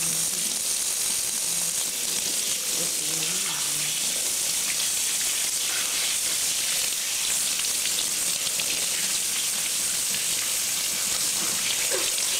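Kitchen faucet running in a steady stream into a stainless steel sink, the water splashing over hands being washed under it.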